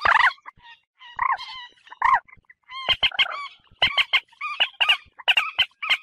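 Common moorhen calling: a run of loud, harsh croaking calls. The notes come singly in the first half, then as quicker, clipped notes in the second half.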